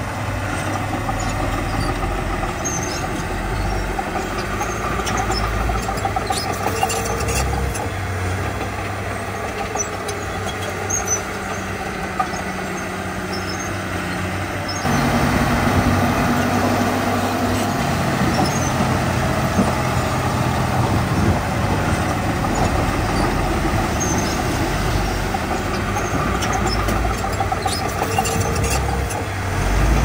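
Diesel engines of earthmoving machinery (a bulldozer pushing soil with dump trucks on site) running steadily under load, with short high squeaks now and then. The sound steps up suddenly about halfway through.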